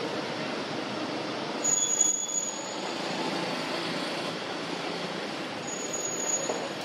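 Steady outdoor background rumble and hiss, with two brief thin, high-pitched whines: one about two seconds in and one near the end.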